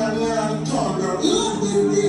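Background music: a song with sustained tones and a voice faintly in the mix.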